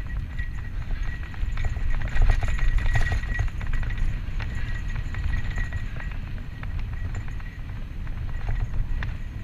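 Santa Cruz Tallboy LTc mountain bike rolling fast down dry dirt singletrack, with tyre noise and a steady clatter and rattle from the bike over roots and bumps. Wind buffets the helmet-mounted action camera with a heavy rumble. A thin high buzz comes and goes.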